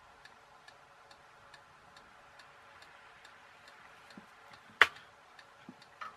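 Faint, even ticking, a little over two ticks a second, in the background of a quiet workbench. About five seconds in comes one sharp click as a tool is handled on the bench.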